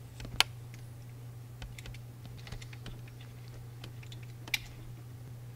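Small clicks and light taps of plastic parts and wiring being handled, as the wire leads and a small GPS tracker unit are worked by hand. Two sharper clicks stand out, one just after the start and one near the end, over a steady low hum.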